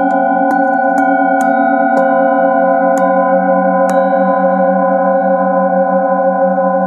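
Metal singing bowl held on the palm and struck with a padded mallet, six strikes in the first four seconds. Its several tones then ring on with a slow pulsing wobble.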